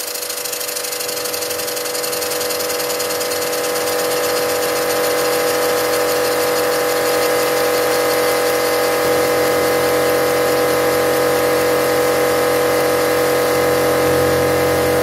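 Stuart No. 4 model steam engine running fast on compressed air while being run in, its rapid exhaust beats over the steady hum of a workshop air compressor. The sound grows louder over the first few seconds, then holds steady.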